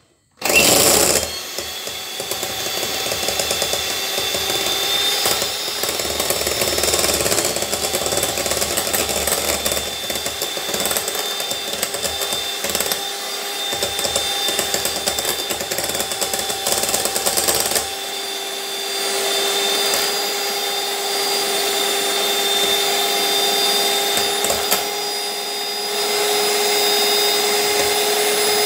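Electric hand mixer running, its twin wire beaters whipping a coffee, sugar and hot-water mixture into thick dalgona foam. The motor starts suddenly about half a second in and runs steadily with a whine, which changes slightly partway through.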